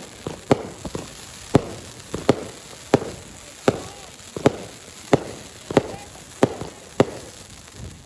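Fireworks going off in a steady series of sharp bangs, about one every 0.7 seconds, each with a short echoing tail, like a repeating multi-shot cake.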